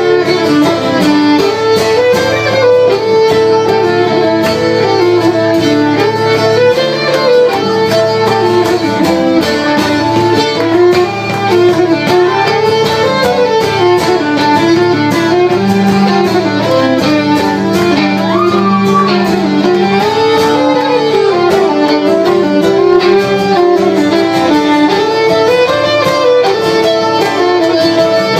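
Live acoustic fiddle playing a fast tune in quick up-and-down runs, with an acoustic guitar strumming chords underneath.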